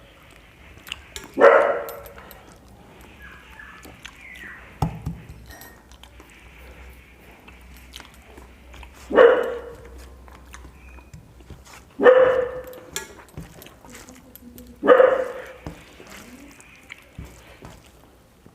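A dog barking: four single loud barks several seconds apart, with faint clicks between them.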